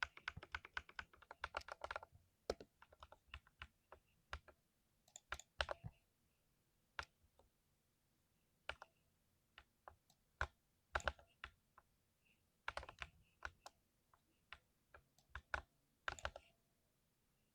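Typing on a thocky mechanical keyboard. The keystrokes come in quick irregular flurries, separated by single strokes and short pauses.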